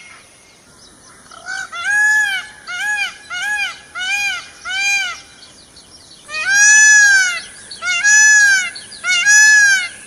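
Peacock calling: a run of short calls, each rising and falling in pitch, about one a second. After a brief pause come three longer, louder calls.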